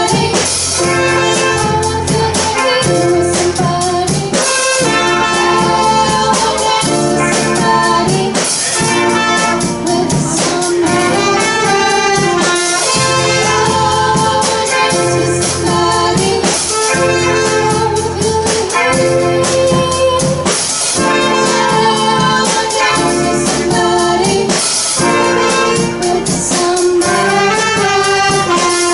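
A live student band playing a song: full-band music with drums keeping a steady beat and a sustained melody line over it.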